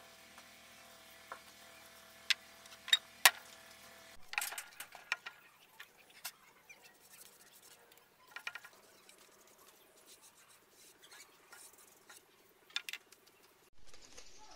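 A few sharp clicks and light taps, scattered irregularly. A steady hum sits under them for the first four seconds, then the background turns quieter.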